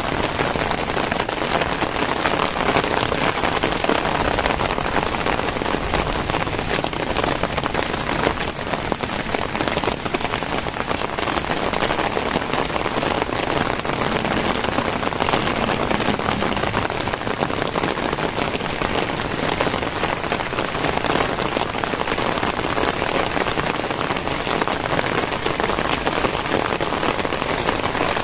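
Very heavy rain falling steadily and densely on surfaces, an even downpour with no break.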